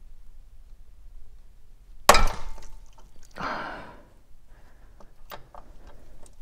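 A single sharp metallic crack about two seconds in as a crow's-foot line wrench breaks the seized aluminum brake hard-line fitting loose, followed by a heavy breath of effort.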